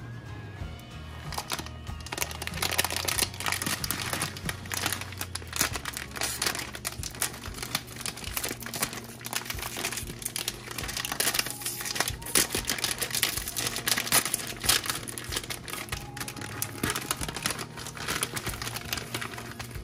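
A plastic Samyang Buldak ramen packet crinkling again and again as it is handled and opened, over background music.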